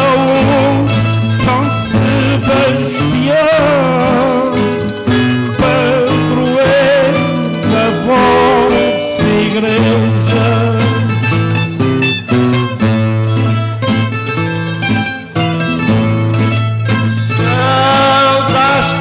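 Cantoria ao desafio, the traditional improvised duel song: a man sings to an accompaniment of acoustic guitar and other plucked string instruments.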